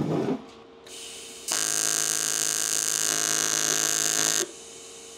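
TIG welding arc buzzing and hissing for about three seconds, then cutting off suddenly, after a fainter hiss just before it starts. The heat is still set too high and the arc is burning through the thin metal.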